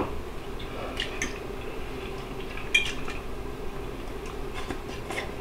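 A fork clinking and scraping lightly against a plate a few times as food is picked up, in short separate ticks.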